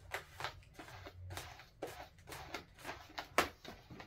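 A pink 260 latex modelling balloon squeaking and rubbing in the hands as it is twisted into bubbles, in short irregular bursts, the sharpest one about three and a half seconds in.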